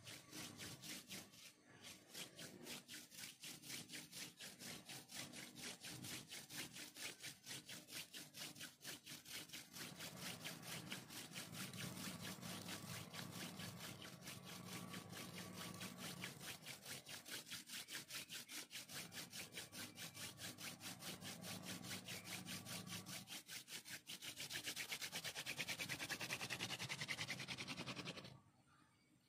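Hand-drill friction fire: a wooden spindle twisted back and forth between the palms, grinding into a wooden hearth plank with a fast, even rasping rhythm. It grows louder for the last few seconds, then stops briefly near the end.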